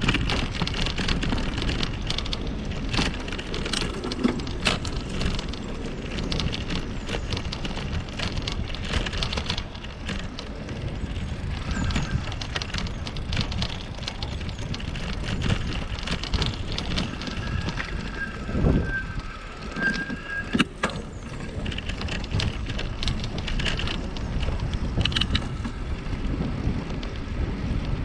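Riding sound from a bicycle-mounted camera: a steady rumble of tyres and air, with frequent sharp rattles and clicks from the bike.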